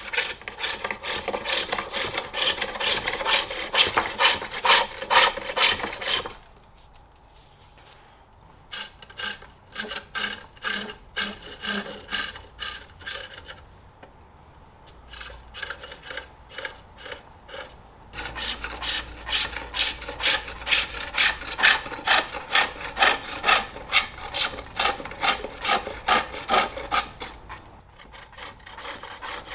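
Hand-forged O1 tool-steel hook tool cutting a wooden bowl on a pole lathe: a rhythmic scraping and shaving as the blank spins back and forth with each treadle stroke, easing off twice in short lulls.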